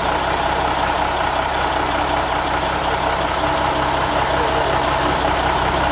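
A heavy vehicle's engine idling steadily, its low note shifting slightly about three and a half seconds in.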